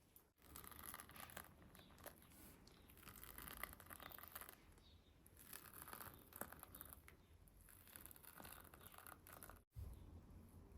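Faint scraping and crinkling of food being handled and worked by hand, with small irregular clicks and a brief dropout near the end.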